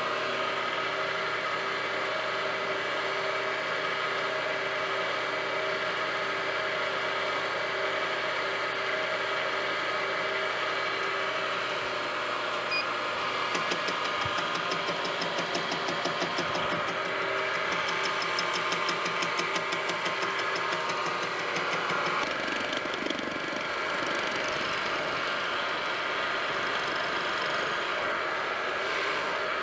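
Benchtop milling machine running steadily, its spindle turning a boring head that bores out a radius in a casting, with a steady motor and gear whine. From about 13 to 22 seconds in, a fast, even ticking of the cut joins in.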